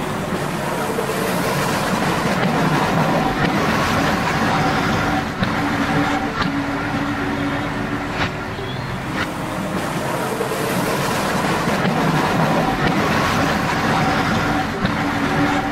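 Model diesel railbus running along the track: a steady engine-like drone, with a few sharp clicks in the middle.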